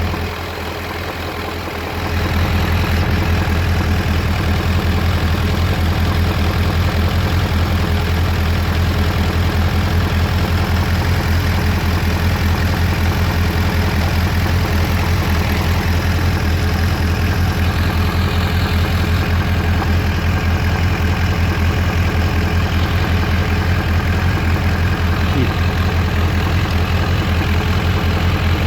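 Suzuki GSX750F motorcycle's inline-four engine idling steadily with a rapid, even pulse, getting louder about two seconds in. The owner is asking whether this engine noise is normal.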